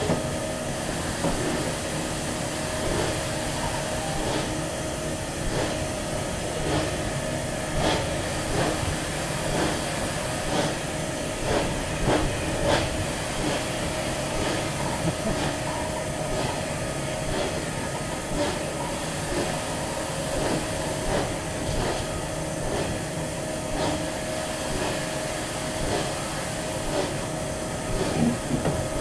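Steam-hauled train behind West Country class locomotive 34092 Wells on the move: a steady hiss and rumble with a constant thin whine, broken by irregular knocks and clanks.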